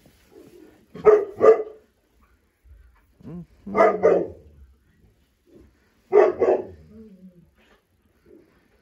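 Great Pyrenees puppy barking in three quick double barks, about two and a half seconds apart.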